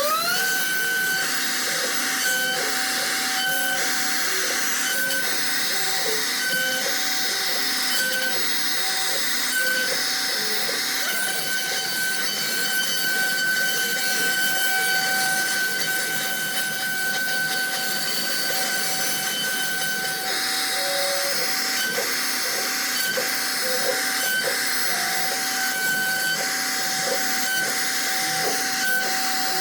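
CNC router spindle spinning up at the very start, then running at a steady high tone while the bit cuts into wood with a hissing rasp. The stepper motors driving the gantry sound underneath as shifting low notes.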